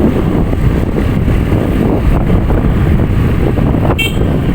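Wind buffeting the microphone over the steady rumble of a moving vehicle, with a brief high chirp about four seconds in.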